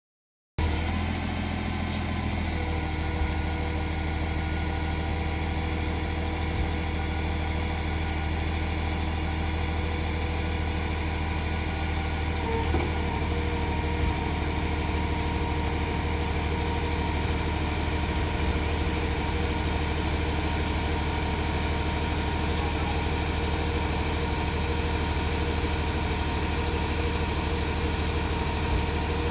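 Diesel engine of a Jungheinrich DFG670 forklift running steadily while the mast raises the forks.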